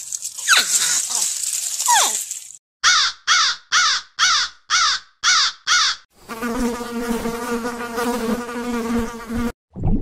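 Crows cawing: seven calls at about two a second, after an opening hiss with a couple of short falling squeaks. About six seconds in, a steady insect-like buzz takes over.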